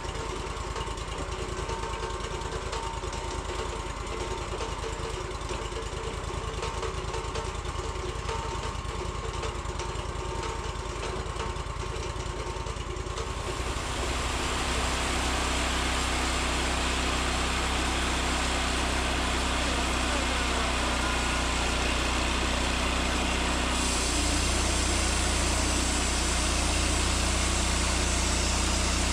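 Band sawmill running: its engine drones steadily, then gets louder and fuller about halfway through, as if throttled up to saw, with another rise in the hiss near the end.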